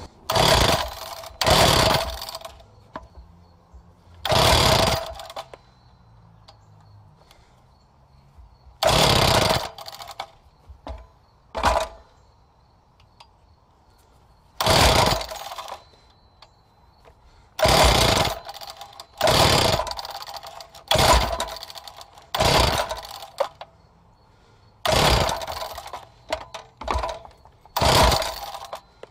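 Wacker BTS 11 concrete saw's two-stroke engine being pull-started over and over: about a dozen short bursts of recoil cranking, each about a second or less with a pause between, and it never catches and runs. The saw has sat for months and only fires briefly; the owner suspects the spark plug or a clogged air filter.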